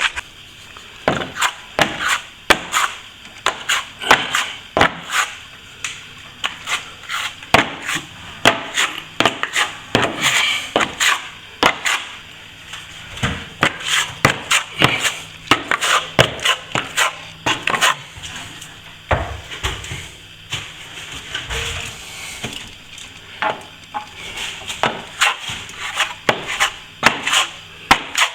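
Hand plastering tools clacking and scraping irregularly, several sharp knocks a second, as a second coat of plaster is applied to a wall.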